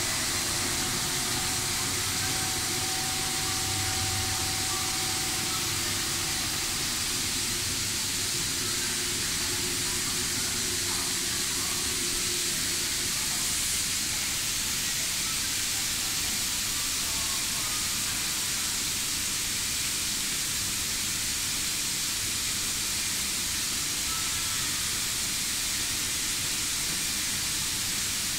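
A steady hiss, even and unchanging throughout, with faint steady tones that die away in the first few seconds.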